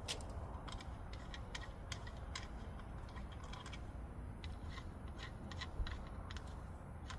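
Irregular light clicks and taps, two or three a second, from small parts and hand tools being handled during brake work.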